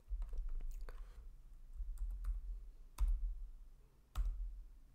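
Typing on a computer keyboard: scattered key clicks, with two louder keystrokes about three and four seconds in.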